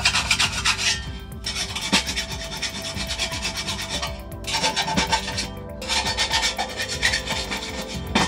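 A hand file rasping along the cut edge of steel trunking to deburr it, in quick scraping strokes in several runs with short pauses.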